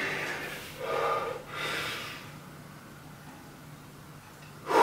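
A man breathing hard while recovering from a high-intensity exercise interval: three loud breaths about a second apart, then quieter, then another loud breath near the end.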